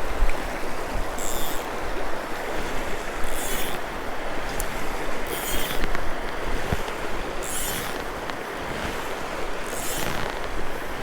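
Steady rushing of river water, with a brief high swish about every two seconds from a fly line being cast back and forth.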